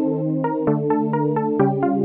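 Electronic outro music: a quick run of short synthesizer notes, about four or five a second, over held bass notes.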